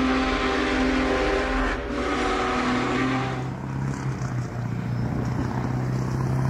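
A held sound of several steady tones over a hiss cuts off suddenly about three and a half seconds in. After it, a GMD SD40-2 diesel-electric locomotive's 16-cylinder two-stroke EMD engine runs with a steady low drone, pulling a slow-moving freight.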